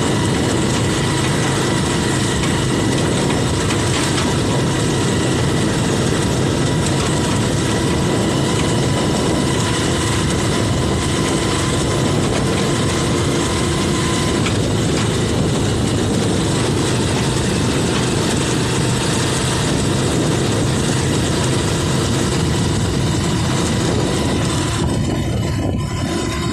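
Motorcycle tricycle's engine running steadily as it rides, with a constant rushing road and wind noise; the higher hiss thins out near the end.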